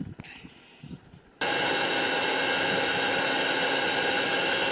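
Bajaj GX1 mixer grinder switching on suddenly about a second and a half in and then running steadily at full speed, grinding sun-dried chillies and spices to a powder in its steel jar.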